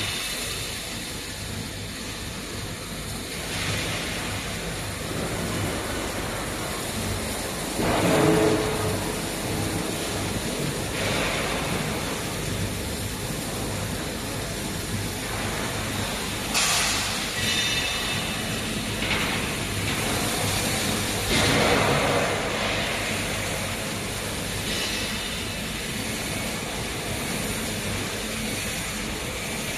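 Automated gantry sorting system on a laser cutting line running, a steady machine hum and drone with a few short, louder hissing bursts.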